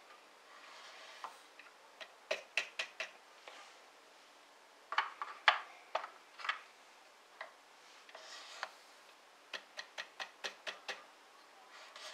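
Benchtop powder measure charging rifle cases: quick runs of light taps on the measure, and a short hiss of powder running down the drop tube into a case. Around the middle come a few louder clicks and knocks from the handle and the brass cases.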